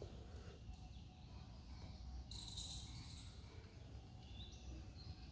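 Faint room tone with a steady low rumble and high chirping in the background: a short buzzy trill about two and a half seconds in, and a few brief chirps near the end.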